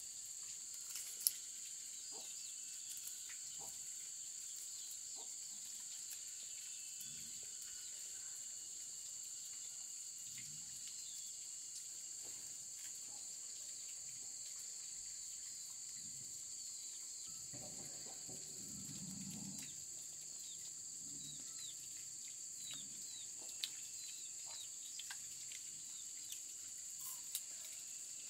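Steady high-pitched drone of insects, with scattered light clicks and a few short bird chirps.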